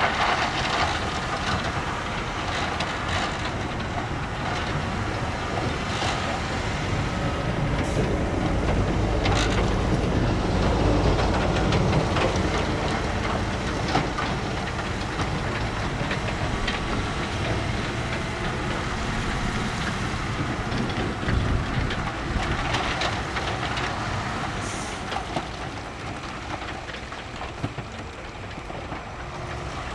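Bulldozer at work: its diesel engine running under load with clanking and knocks from the tracks and rock. The engine is loudest about a third of the way in and eases off toward the end.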